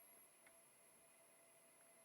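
Near silence: faint room tone with a steady faint hiss, and one small tick about half a second in.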